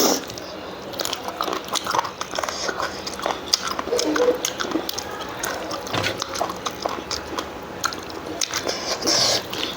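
Close-up chewing and wet mouth sounds of someone eating goat lung and rice, with many small irregular smacks and clicks.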